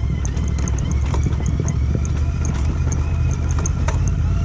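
Royal Enfield Interceptor 650's parallel-twin engine running at low revs in gear down a rocky trail, with irregular clicks and knocks as the bike rattles over loose stones.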